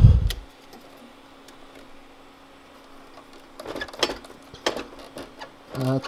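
Cables being handled and unplugged from the back of a desktop computer: a thump at the start, then a cluster of clicks and rattles of plugs and leads about two-thirds of the way through, over a faint steady hum.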